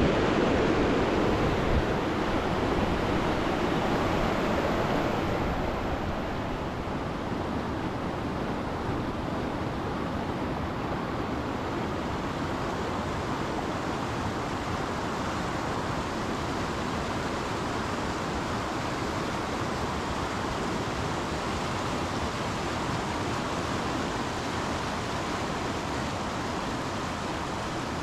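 Steady rush of a fast, turbulent mountain river, a little louder for the first several seconds and then even.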